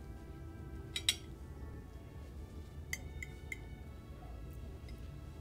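Knife and fork clinking against a china plate while cutting salad: two sharper clicks about a second in, then three light clinks around three seconds. Soft background music with held tones underneath.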